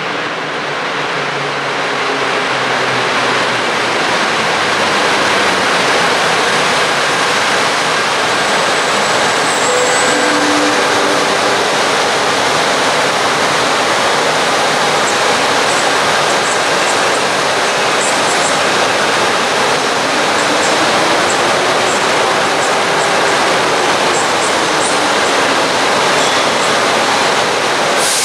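An EP09 electric locomotive with passenger coaches rolls in along the platform and comes to a stand. Its noise builds over the first few seconds, then holds as a steady loud rush. A few faint short high squeals come in the second half.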